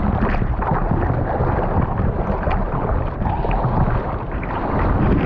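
Surf water rushing and splashing around a GoPro, with wind buffeting the microphone, as the surfer goes for a big wave.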